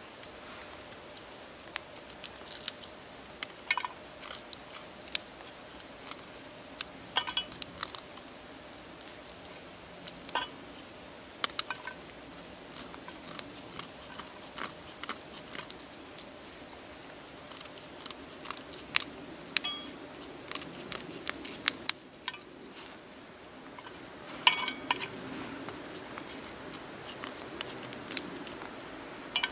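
Irregular small snips and clicks of hand work with a small cutting tool close to the microphone, over a faint steady hum.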